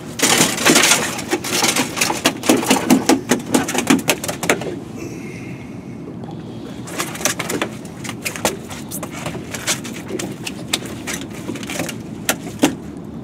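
A freshly caught striped bass flopping and slapping on a boat's fiberglass deck: a rapid, irregular run of slaps and knocks for about the first four seconds, then only occasional knocks as it is held down.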